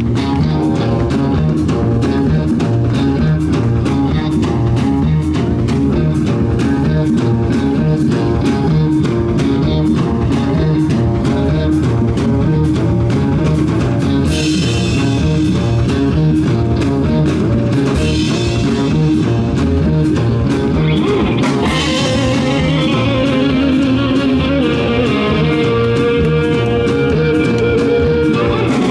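Live rock band playing: electric guitars over a drum kit, heard from the audience through the stage PA, with a long held note near the end.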